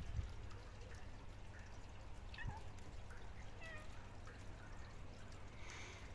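A few faint, short, high animal calls, some gliding in pitch, about two to four seconds in, over a low steady rumble, with a low bump at the very start.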